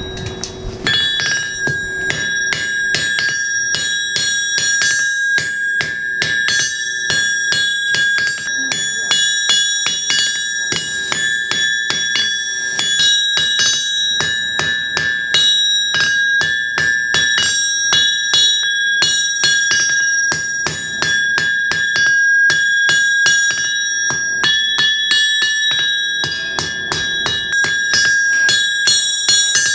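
Blacksmith's hammer striking hot steel on an anvil in a quick, steady rhythm of blows. The anvil rings on between strikes.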